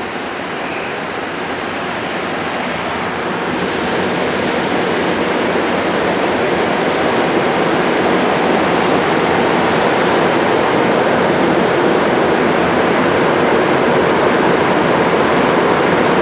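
Montreal metro MR-73 rubber-tyred train accelerating out of a station into the tunnel, heard from inside the car. It makes a steady rushing noise that grows louder over the first several seconds and then holds.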